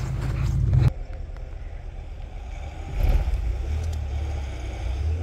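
Pickup truck engines running in deep snow. A loud low engine sound cuts off suddenly about a second in, leaving a quieter steady engine rumble that swells briefly around the middle, as one truck strains to pull another out on a tow strap.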